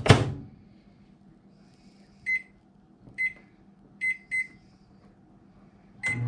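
A microwave oven's door shutting with a loud clack, then its keypad beeping five times as a cooking time is entered and started. The oven's hum starts up right at the end.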